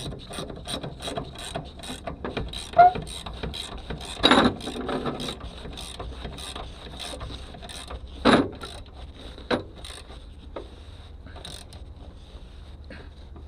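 Ratchet wrench clicking rapidly as it tightens the seat's mounting bolts, about three or four clicks a second, with a few louder knocks along the way.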